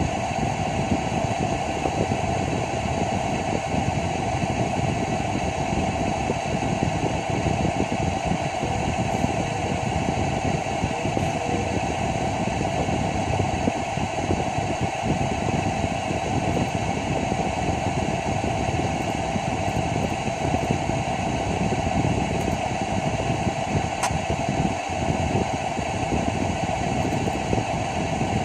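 Steady mechanical hum of running machinery or fans, even and unchanging, with a few constant tones in it. One light click about 24 seconds in.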